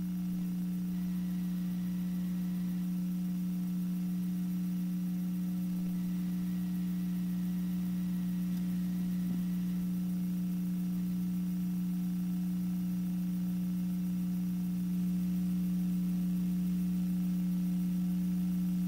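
Steady electrical hum on a broadcast audio feed: two low, unchanging tones with a faint hiss and nothing else, growing slightly louder about fifteen seconds in.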